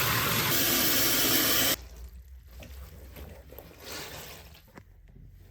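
Bathtub tap running, rinsing soap out of washed fabric; the water is shut off sharply about two seconds in, leaving only faint small splashes.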